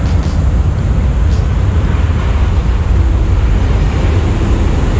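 Steady low rumble of city road traffic, mixed with wind buffeting the microphone.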